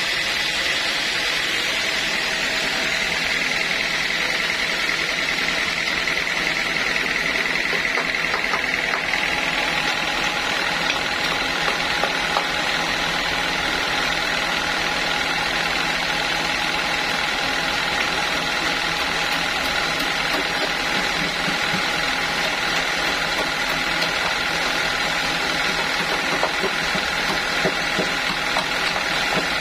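Sawmill machinery running steadily, a mechanical hum with a high whine that swells for a few seconds and then settles.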